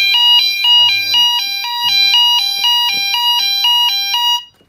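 Fire alarm sounder going off in alarm with a two-tone warble, switching rapidly between a higher and a lower pitch a few times a second. It cuts off suddenly near the end.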